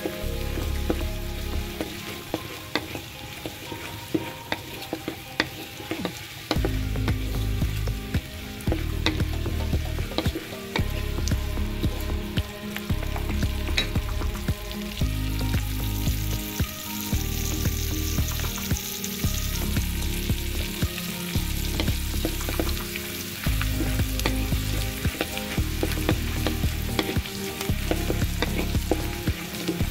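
Minced garlic, ginger and chili sizzling in melted butter in a wok, with a wooden spatula stirring and scraping against the pan in quick ticks. Background music with a steady low beat joins about six seconds in.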